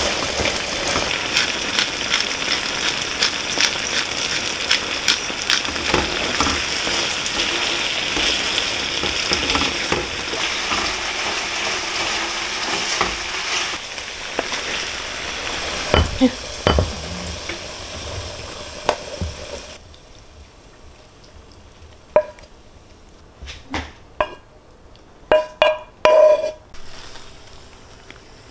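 Food frying in a pan, a steady sizzle thick with small crackles that fades away a little over halfway through. Then a few separate clinks and knocks of kitchenware follow, some of them ringing briefly.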